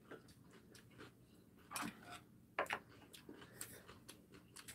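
Faint, scattered clicks of chopsticks against bowls and a plate as two people eat, with a few louder clicks in the middle.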